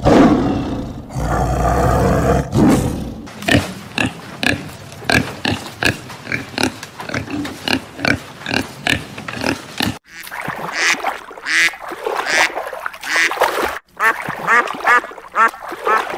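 A tiger's low rumbling growl for the first few seconds, then piglets grunting in short, regular grunts as they eat, then ducks quacking in quick series near the end.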